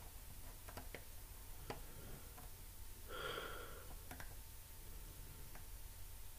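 Quiet room tone with a few faint, scattered clicks and a soft breath about three seconds in.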